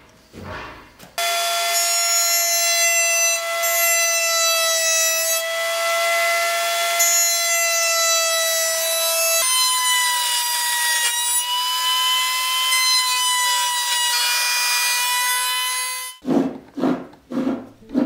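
Wood router running at speed in a router table while a plywood piece is trimmed, a steady high whine that jumps higher about halfway through. A few sharp knocks near the end.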